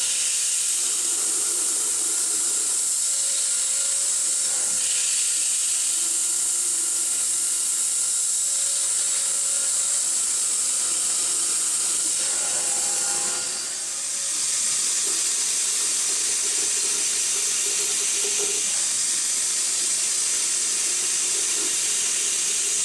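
Novakon Torus Pro CNC mill running in lathe mode, its spindle turning a part as it is machined, under a steady high hiss. The level dips briefly about 14 seconds in.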